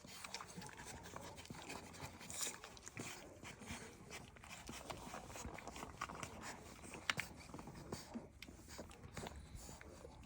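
Faint dog sounds: panting and movement, with many small clicks and scrapes and a couple of sharper ticks.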